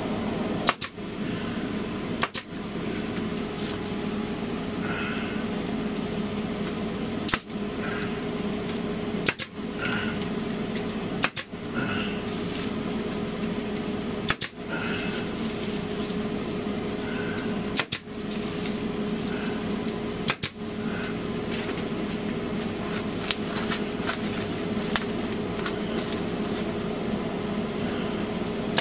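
Arrow PT50 pneumatic staple gun firing staples through foil insulation: about eight sharp shots at irregular intervals a couple of seconds apart. A steady machine hum runs underneath.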